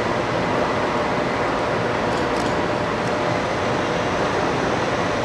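Steady hum and whoosh of ventilation machinery in a rail depot shed beside a parked electric train, even in level with a few faint steady tones through it. A couple of faint ticks come about two seconds in.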